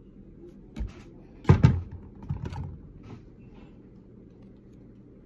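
Handling noise at a tabletop as trading cards are put down and sorted: a low thump about a second in, then a couple of sharp knocks and clicks that are the loudest part, followed by a few lighter clicks.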